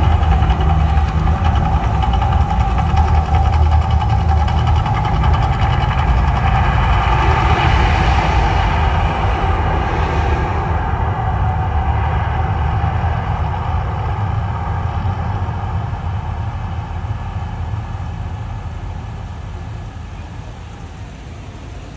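Mirage volcano show erupting: a loud, deep steady rumble with a rushing hiss that swells about eight to ten seconds in, then dies away gradually through the second half as the eruption ends.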